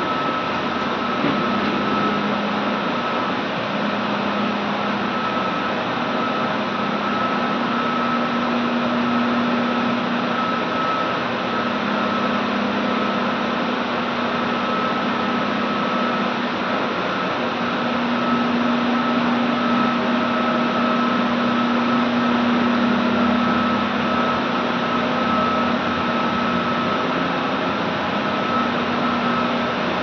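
Steam boiler plant running: a steady loud mechanical roar with a constant high whine and a lower hum that swells and fades.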